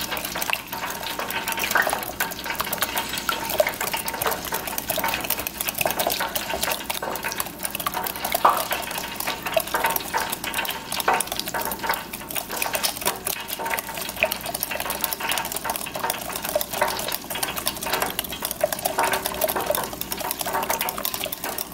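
Wire whisk beating a thick flour-and-milk batter in a glass bowl: a steady run of quick clicks and scrapes as the wires strike the bowl's sides.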